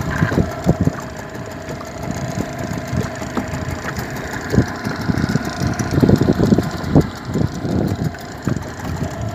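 Small boat's outboard motor running steadily while crossing choppy river water, with irregular low thumps, heaviest about six to seven seconds in.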